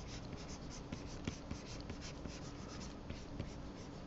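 Pen stylus scratching and tapping on a graphics tablet in quick, short strokes, sketching clumps of fur. Faint, with many small irregular clicks.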